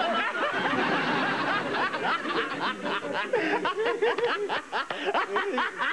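An audience laughing and chuckling, many voices together, right after a joke's punchline.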